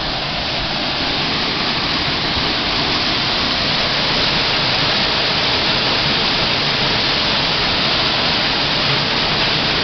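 Waterfall's steady rush of falling water, growing a little louder over the first few seconds.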